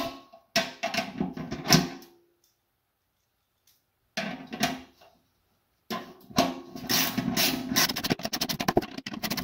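Ratchet wrench clicking as bolts are tightened through the wall of an aluminium pot, with metal knocks ringing in the pot. It stops for about two seconds around two seconds in and again briefly around five seconds, then runs on as rapid, steady clicking from about six seconds.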